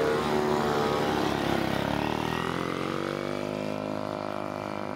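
Bucci BR12 minibike engine revving as the bike pulls away. Its pitch dips about two seconds in, then climbs again and holds, getting a little quieter as the bike rides off.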